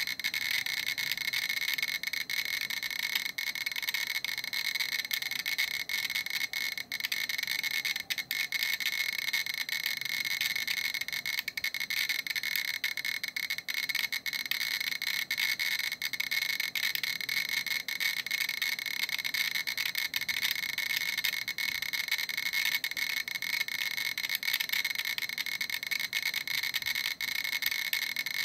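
GQ Geiger counter's speaker clicking very rapidly, around fifty counts a second, merging into a steady chattering crackle. The count rate of about 3,100 counts per minute (about 20 µSv/h) comes from the radiation of a uranium-238 metal sample.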